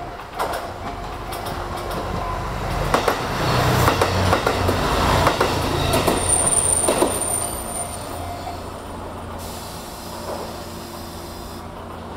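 A train passing over a level crossing: its wheels knock over the rail joints and crossing in a rising, then fading run, with a brief high wheel squeal about halfway through.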